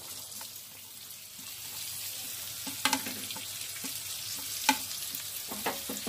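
Sliced onions dropping into hot coconut oil in a metal kadai and sizzling steadily, with a few sharp knocks of utensils against the pan.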